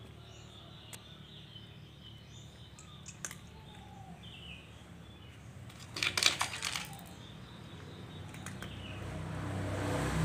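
A few light clicks, then a short burst of clinking and rattling about six seconds in, over low background noise.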